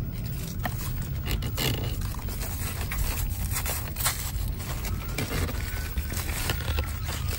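Rustling and scraping of cucumber vines and leaves being handled during picking, with scattered short clicks, over a steady low rumble.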